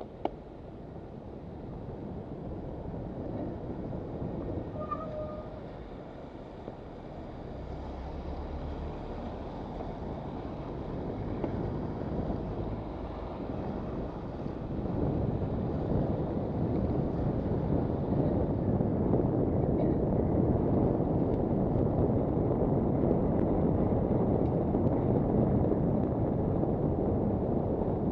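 Wind rushing over a bicycle-mounted camera's microphone, with road noise, a steady rumble that grows louder through the second half as the ride picks up speed.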